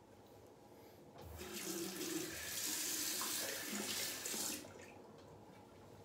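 Bathroom sink tap turned on, water running into the basin for about three seconds, then shut off.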